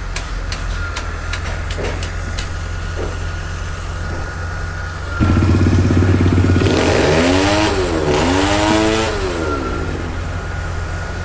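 A steady low machine hum with a few light clicks. About five seconds in, a much louder engine comes in, and its pitch dips and rises twice before it settles back to a steady run: an excavator's diesel engine, with a hydraulic breaker on its arm, being revved.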